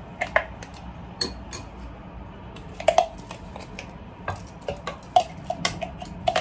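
A metal spoon scraping blended chili paste out of a plastic mini-chopper cup, clinking against the cup and the stainless steel mixing bowl: a dozen or so irregular sharp clinks, some with a short metallic ring.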